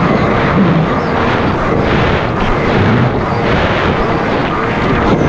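Jet ski engine running steadily under way, heard as a loud, even rush of noise with no let-up.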